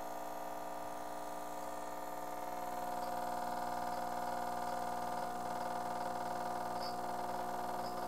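Gaggia Classic Pro espresso machine's vibratory pump running with a steady hum while an espresso shot extracts, getting a little louder about two and a half seconds in.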